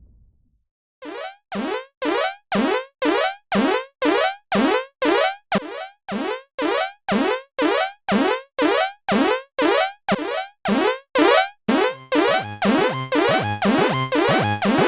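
Electronic Japanese level-crossing warning bell ringing over and over, about two dings a second, each ding sliding down in pitch. It starts about a second in, and near the end a second, overlapping layer of bell tones joins, making it denser.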